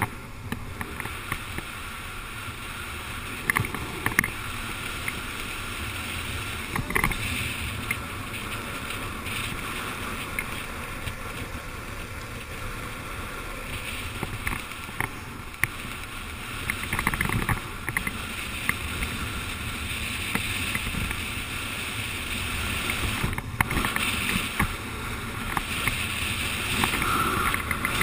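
Downhill skateboard ridden fast: steady wind rushing over the microphone with the rolling hum of the wheels on asphalt and scattered short clicks and scrapes. It grows louder near the end.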